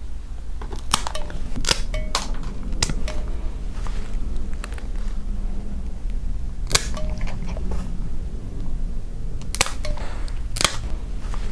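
Plier-style dog nail clippers snapping through a dog's nails: several sharp snaps at irregular intervals, each one a nail tip cut off.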